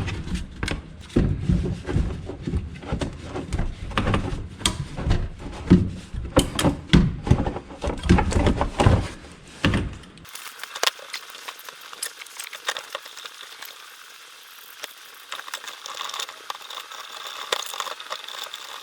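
Irregular metallic clanks, knocks and rattles of hand tools and parts being handled in an engine bay. About ten seconds in the sound changes abruptly to a quieter hiss with a few faint clicks.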